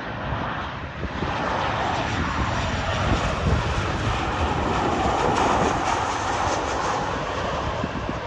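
Airliner's engines as the plane passes close by. The noise swells about a second in, stays loud through the middle and eases off near the end.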